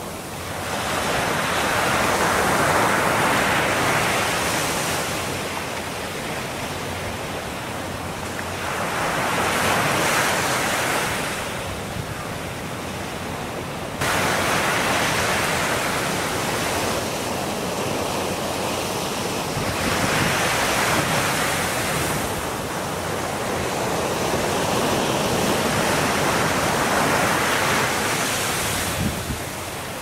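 Sea waves breaking and washing up the beach, the surf swelling and falling back every five to seven seconds.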